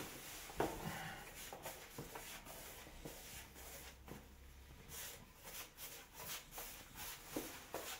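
Faint scattered rubbing and light knocks of objects being handled, with no steady rhythm.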